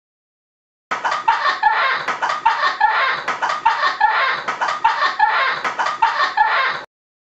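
A person's high-pitched laugh, a long run of evenly spaced bursts at about two and a half a second, starting about a second in and cutting off abruptly near the end.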